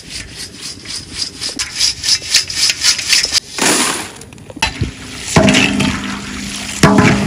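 Deep-fried banana chips being turned and scooped with a perforated metal skimmer in a large wok: repeated scraping and clattering, several strokes a second. A low steady hum joins in over the last two seconds.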